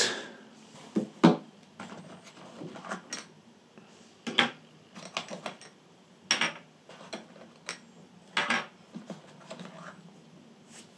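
Small hard-plastic GoPro camera mounts being handled, lifted out of a carrying case and set down on a desk: scattered clicks and knocks at irregular intervals, the sharper ones a second or two apart.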